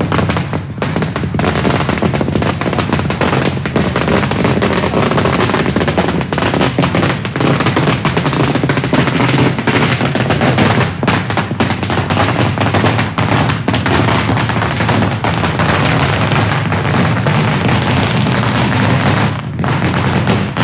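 A long string of firecrackers going off in rapid, continuous cracks, loud throughout, with a brief lull near the end.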